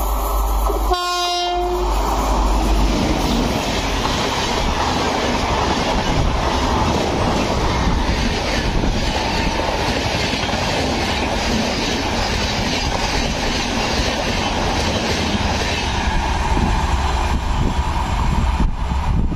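A WAP7 electric locomotive's horn sounds one short blast about a second in. Then the Howrah–NJP Shatabdi Express passes close by at speed: a loud, steady rush of coach wheels running on the rails that eases off near the end.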